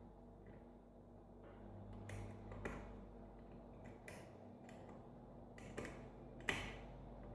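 Scattered small metallic clicks and ticks of a lock pick working the pin stacks of a Sargent five-pin mortise cylinder during single-pin picking, with a sharper click near the end.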